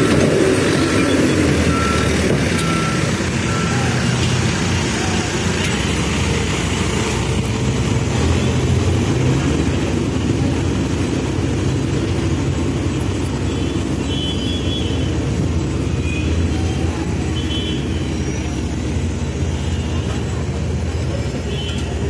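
Backhoe loader's diesel engine running steadily as the machine backs away down the street. A reversing alarm beeps several times at an even pace in the first few seconds.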